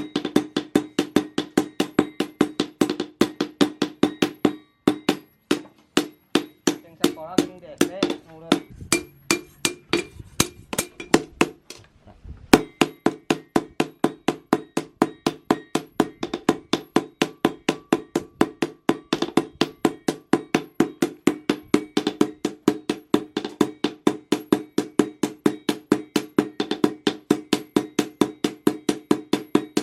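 Steady hammer blows on hot steel over an anvil, several ringing strikes a second: a chainsaw-bar blank being forged into a machete blade. The hammering pauses briefly about five seconds in and again near the middle.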